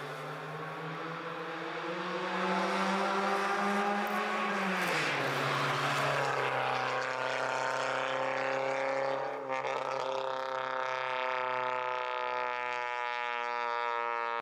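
Honda DC5 Integra's four-cylinder engine and exhaust running under way. The pitch climbs for the first few seconds, drops about five seconds in, then holds a steady, rich drone.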